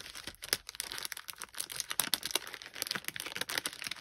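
Clear plastic packaging crinkling as a sheet of adhesive-backed pearls is handled: a dense, irregular run of small crackles.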